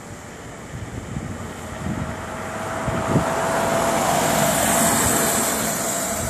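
Electric Cruzin Cooler motorized cooler scooter approaching at speed: a thin motor whine over hiss, growing louder to a peak about four to five seconds in, then easing slightly.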